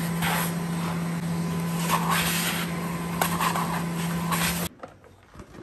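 RoboClean canister vacuum cleaner's motor running steadily with a low hum and a rush of air, with a few plastic knocks as attachments are changed on the wand. The motor cuts off suddenly about three-quarters of the way through.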